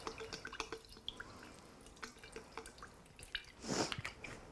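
Soy sauce dripping from a tipped bottle into a glass mason jar: a quick run of small drips that thins out after about a second, then scattered drops. Near the end there is a short swish.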